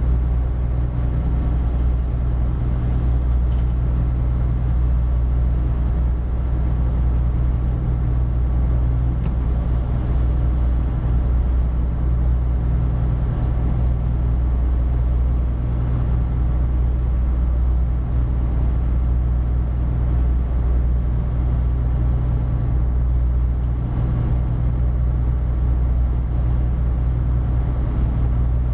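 Steady low drone of a loaded inland cargo barge's diesel engine running under way, an even hum with no change in pace.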